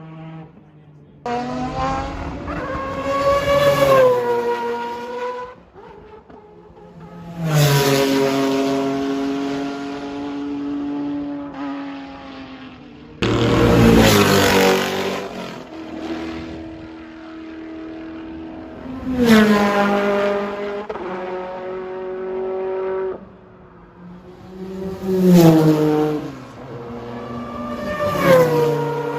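Mazda four-rotor rotary racing engine revved hard in about five bursts, its pitch climbing and then dropping back to a steadier running note between blips.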